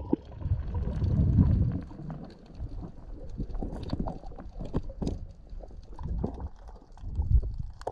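Underwater sound on a diver's camera: a muffled, unsteady low rumble of water moving around the camera, with scattered clicks and knocks throughout.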